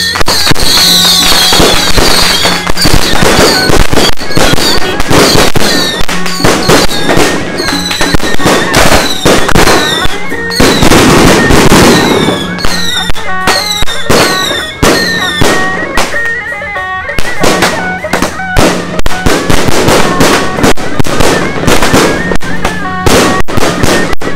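A dense, continuous barrage of firecrackers and fireworks bangs, with many short whistles falling in pitch. Music with steady held tones plays underneath.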